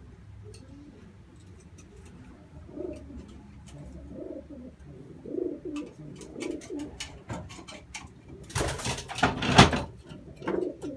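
Racing pigeon hens cooing in the loft, with scattered sharp clicks. A loud flurry of wingbeats about 8.5 to 10 seconds in as a hen takes off from the floor.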